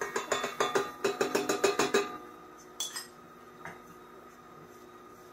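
A small utensil rapped quickly against a stand mixer's stainless steel bowl, about six ringing metallic taps a second for two seconds, knocking ingredients into the bowl. Two or three lighter knocks follow around three seconds in, over the steady hum of the running mixer.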